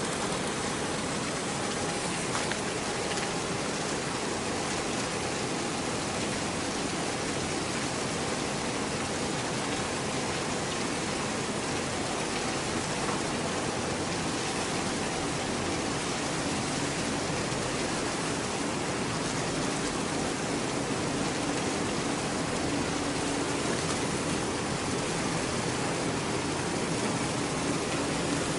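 Steady rushing, hissing water noise, with a faint low hum joining in during the second half.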